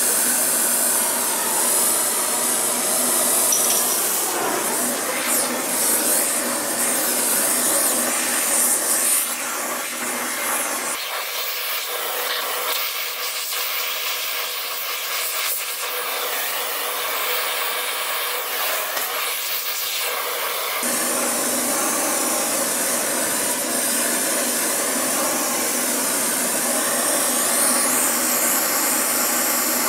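Gas torch flames hissing steadily: a propane torch preheating the bearing hub for brazing. About a third of the way in it changes to the thinner hiss of the oxy-acetylene torch heating the braze joint, and returns to the propane torch about ten seconds later.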